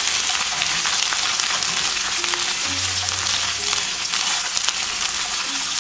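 Sliced bok choy, fennel and green onions sizzling in hot olive oil in a frying pan while being stirred: a steady hiss with fine crackles.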